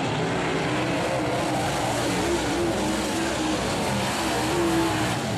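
Dirt-track modified race car engines running hard on the track. The pitch wavers up and down as the cars rev.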